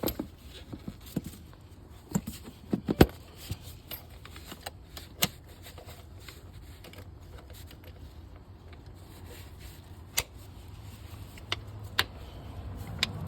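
Scattered sharp clicks and knocks of hand work on a car's engine, with parts and tools being handled, over a faint steady low hum.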